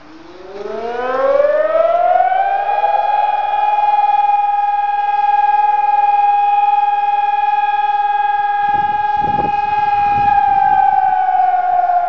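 Telegrafia PAVIAN 1200 electronic siren sounding its test signal. The tone rises in pitch over about two and a half seconds, holds one loud steady pitch, and begins to fall about ten seconds in.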